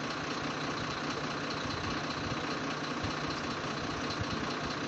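A vehicle engine idling steadily, with an even hiss behind it.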